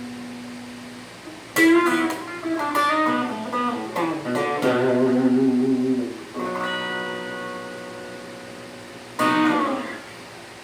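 Squier Telecaster Standard electric guitar being played. A held note fades out, then about a second and a half in a chord is strummed and followed by a quick run of picked notes. Another chord is struck and left to ring down, and a last strum comes near the end.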